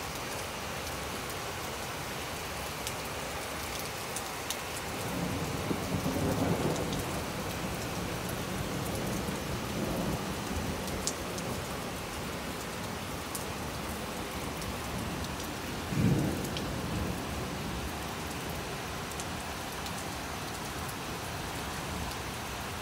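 Heavy rain pouring steadily, with thunder rumbling about five seconds in and again, more faintly, near ten seconds. A shorter, louder thunderclap comes about sixteen seconds in.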